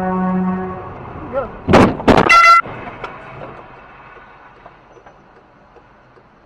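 Car horn blaring in a steady low tone that cuts off just under a second in, followed about two seconds in by a few very loud abrupt blasts and a short higher-pitched horn toot, as a van cuts across in front of the car.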